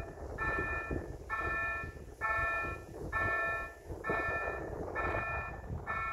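Level crossing warning bell ringing in even pulses, a little under one a second, over a low background rumble.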